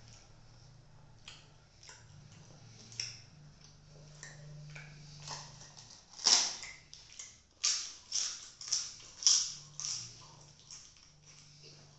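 Crisp papad being snapped by hand and crunched: scattered faint crackles, then a loud crackle about halfway through and a quick run of sharp crunches after it.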